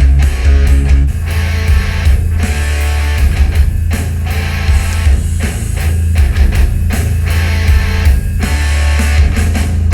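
Death metal with distorted guitars and a heavy, dominant bass line, played loud through a DIY portable speaker with a subwoofer.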